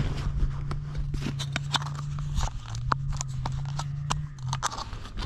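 An engine running nearby, its pitch climbing and then holding steady, easing off about two and a half seconds in, picking up again and dying away near the end. Close, sharp clicks and rustles of hands handling the bait and jig sound over it.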